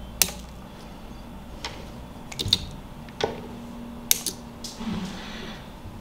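A few sharp, separate clicks and ticks of small hand tools and wire leads being handled on a bench mat. The loudest come about a quarter second, two and a half, three and a quarter and four seconds in.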